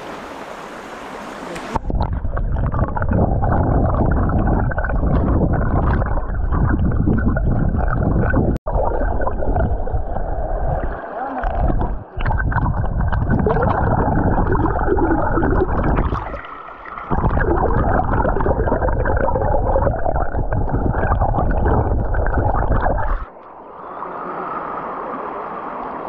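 Rain-swollen spring stream rushing and gurgling, loud with a heavy low rumble, dropping out briefly a few times and quieter near the end.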